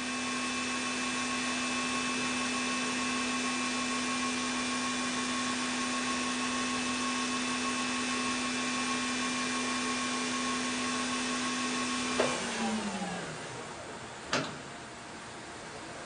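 Chevalier QP1620L vertical machining center spindle running steadily at 15,000 rpm, a constant whine over a hiss. About twelve seconds in it spins down, its pitch falling away, and a single click follows a couple of seconds later.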